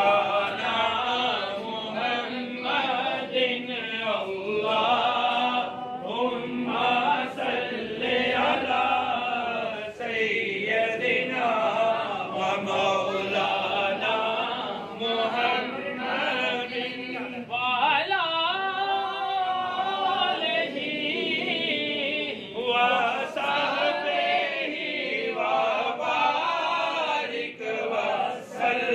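A group of men's voices chanting a devotional recitation together, carrying on without a break.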